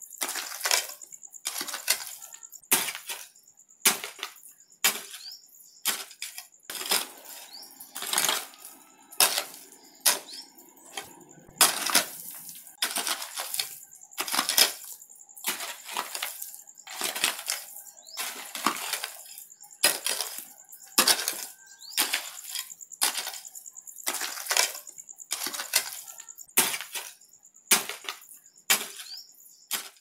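A hoe chopping into rocky ground stroke after stroke, roughly once a second. Each blow is a sharp strike of the steel blade against stones and gravel, followed by a short rattle of loose soil and pebbles.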